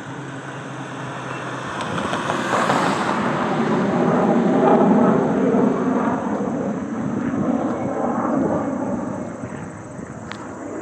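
F-35 Lightning II fighter's Pratt & Whitney F135 turbofan jet engine making a pass: a rushing jet noise that swells to its loudest about four to five seconds in, then eases off.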